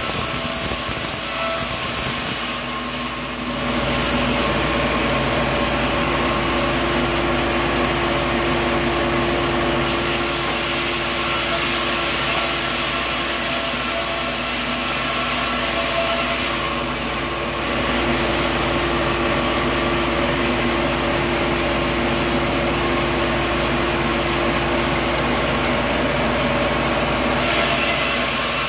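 Sawmill machinery running steadily, a saw and its motor cutting coconut wood, a constant mechanical drone with a high hiss that drops out briefly twice and shifts again near the end.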